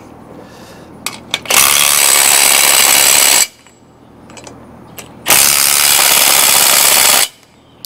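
Impact wrench run in two bursts of about two seconds each, tightening down a large bolt, with a couple of small clicks before the first burst.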